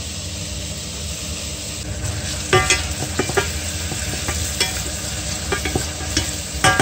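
Chopped onion and garlic frying in olive oil in a stainless steel saucepan, with a steady sizzle. From about two and a half seconds in, a spoon stirs them, knocking and scraping against the pan in a handful of sharp, briefly ringing clacks.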